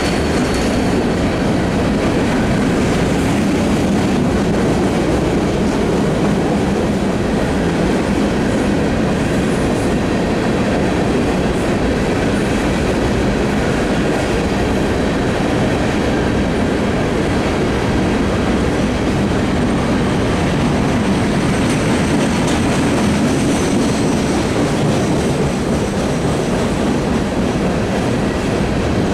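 Empty coal cars of a freight train rolling past: a steady rumble of steel wheels on rail, with faint high wheel squeal near the start and again past the middle.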